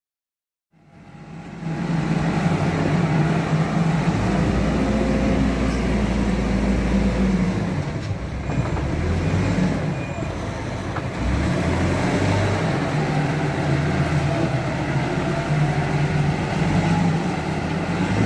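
Hidromek backhoe loader's diesel engine running as the machine works, fading in about a second in. Its low note shifts a few times around the middle as the load changes.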